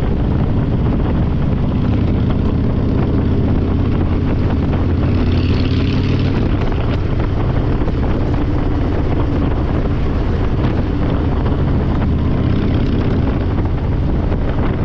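Harley-Davidson Fat Boy 114's Milwaukee-Eight V-twin running at a steady, loud pace through Vance & Hines Big Radius straight pipes, with wind rush on the handlebar-mounted microphone.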